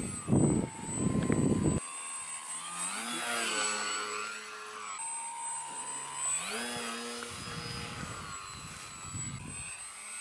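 Electric motor and propeller of a radio-controlled foam plane whining in flight, its pitch rising and falling several times with the throttle. For the first couple of seconds it is partly buried under wind buffeting the microphone.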